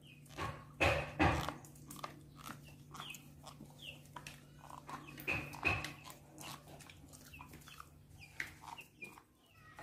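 Short, high squeaks from an animal, each falling slightly in pitch, scattered among soft clicks and taps, with two louder knocks about a second in.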